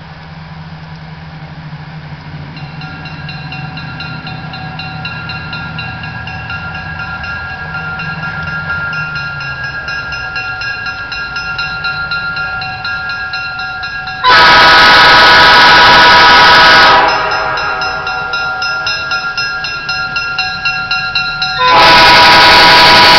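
Lead locomotive 573's horn sounding a chord, growing louder as the train approaches, with two much louder blasts, one about 14 seconds in lasting a couple of seconds and another starting about 22 seconds in.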